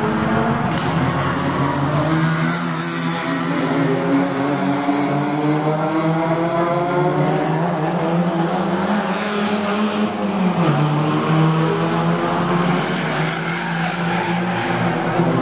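Engines of several touring race cars, overlapping and rising and falling in pitch as the cars take a corner one after another.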